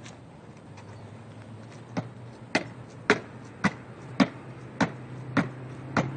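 Sneakers landing on concrete steps during two-footed squat jumps up a staircase. There are eight sharp landings, starting about two seconds in and following about every half second, the first one lighter.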